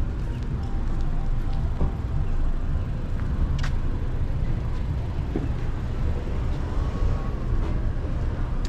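Steady low rumble of city traffic, with a short sharp click about three and a half seconds in.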